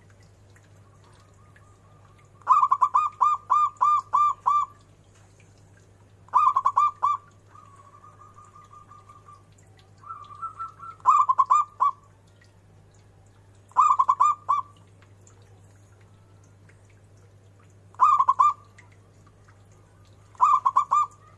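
Zebra dove (perkutut) cooing: six bouts of quick staccato cooing notes, the first and longest about two seconds, with softer rolling trills between some of the bouts.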